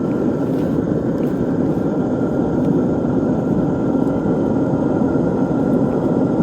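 Steady machine noise with a faint high whine, unchanging throughout.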